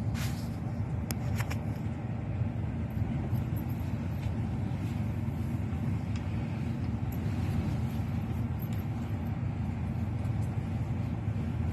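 Steady low rumble of a car in motion, with a few faint clicks in the first second or two.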